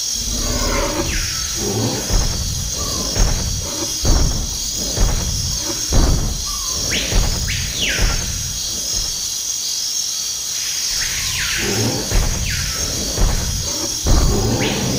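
Jungle ambience: a steady high insect chorus with heavy low thuds about once a second. Now and then a call sweeps steeply down in pitch, and there are rougher mid-pitched calls near the start and toward the end.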